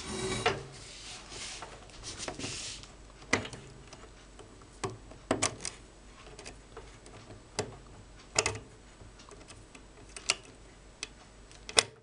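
Light rustling, then scattered sharp metallic clicks every second or two as push-on spade connectors are worked off the terminals of a microwave oven's control unit by gloved fingers.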